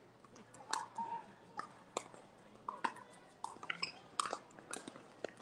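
Pickleball paddles and balls popping and tapping in irregular, scattered hits, one or two a second, with a couple of brief high squeaks.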